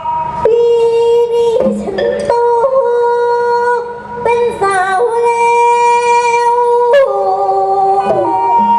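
Thai likay theatre music with singing: a melody of long held notes that slide and bend between pitches.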